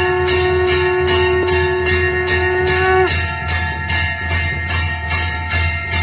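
Temple bell rung rapidly and evenly, about five strokes a second, the ringing tones overlapping into a continuous peal. A steady held tone under the strokes stops about three seconds in.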